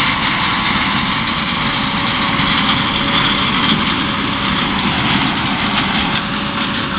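Corn harvester working through a standing corn field: a steady, loud engine-and-machinery drone with no let-up.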